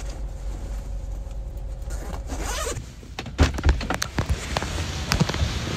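A fluffy jacket being handled close to the microphone: fabric rustling, a zipper, and several bumps and knocks against the phone from about three seconds in. Underneath is a low steady rumble inside the car.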